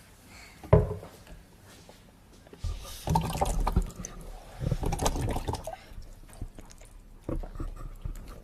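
Bubbles blown through a silicone tube into a bowl of water, gurgling in several irregular spells of a second or so, as in voice bubbling therapy. A single sharp thump about a second in.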